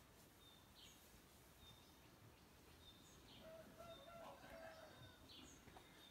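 Near silence: faint outdoor ambience with small birds giving short, thin, high chirps about once a second, and a distant rooster crowing faintly a little past the middle.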